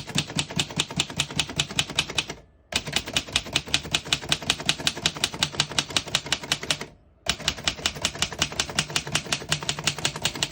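1925 Remington Portable typewriter being typed on rapidly, its typebars striking the platen at about nine even clacks a second. The clacking comes in three runs with two short pauses.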